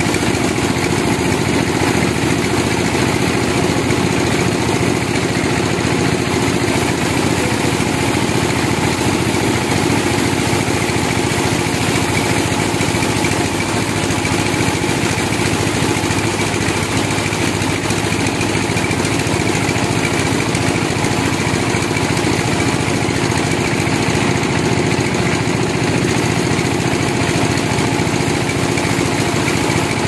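Large stationary band sawmill running steadily, its blade sawing lengthwise through a big log: a loud, unbroken machine drone with hissing saw noise.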